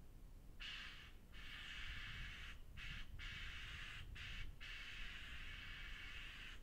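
Faint hiss of a spray-foam roofing gun, starting about half a second in and running in long bursts broken by several short pauses, over a low steady rumble.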